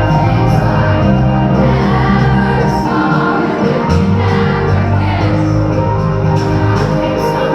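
Live pop song played over an arena sound system: a singer's voice over sustained keyboard chords and bass, with shouts from the crowd.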